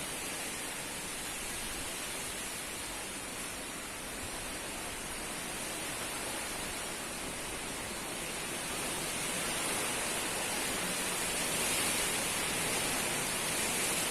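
Strong wind gusting, a steady rushing hiss that grows louder in the second half.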